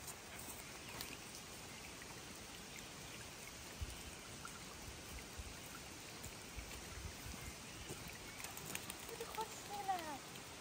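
Steady rain falling on leaves and ground, an even hiss with scattered drops ticking. Near the end, a few short calls slide down in pitch.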